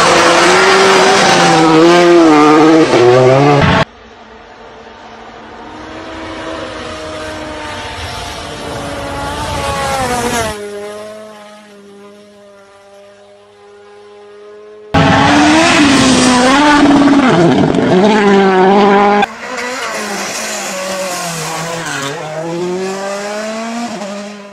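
Rally cars driven flat out: engine notes rising and falling through gear changes as cars pass. The sound cuts between several cars, one of them heard approaching from afar and growing louder. There is a short stretch of a quieter, steady engine note, and some tyre and gravel noise.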